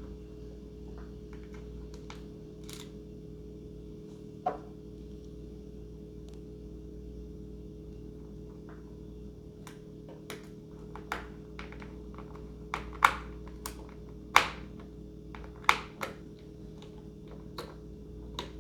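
Scattered sharp clicks and taps of small plastic parts being handled and fitted together during assembly of a foam RC plane. There is one loud tap about a quarter of the way in and a cluster of loud ones past the middle, over a steady low hum.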